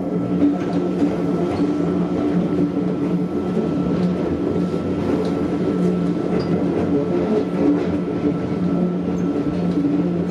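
Mizuma Railway electric train heard from the driver's cab while running along the track: a steady running noise with a low hum and a faint, steady high tone above it.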